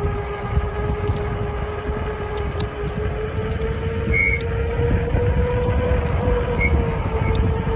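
E-bike electric motor whining steadily while riding, its pitch rising slowly with speed and easing off near the end, over heavy wind rumble on the microphone.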